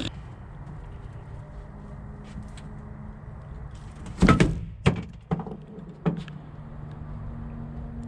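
A few sharp knocks and thuds, the loudest about four seconds in, followed by three or four lighter ones, over a steady low hum.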